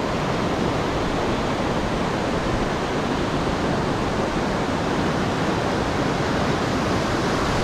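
Steady, even rush of fast-flowing creek water.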